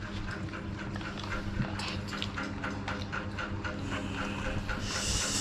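Eating noises of children spooning food from plastic cups: a run of small clicks and scrapes, several a second, over a faint low hum, with a short hiss near the end.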